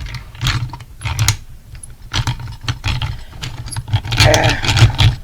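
Irregular clicking, clattering and rattling of hard plastic and metal parts as a tool is worked into a broken alarm clock's case, busiest near the end.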